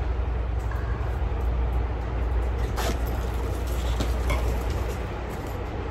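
A steady low rumble, with a few light clicks and rustles as a cloth pouch by a backpack is handled about three and four seconds in.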